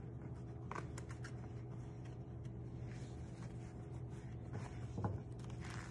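Faint rustling and scuffing of an elastic emergency bandage being wrapped and pressed onto a training mannequin's leg, with a few soft handling noises over a steady low hum.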